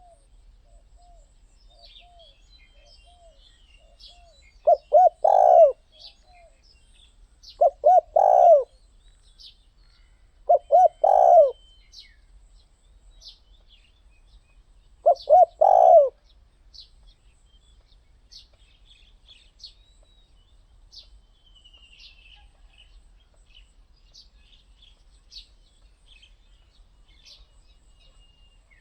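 Spotted dove cooing: soft short coos at first, then four loud phrases, each a couple of quick notes running into a longer coo, in the first half. Small birds chirp faintly throughout.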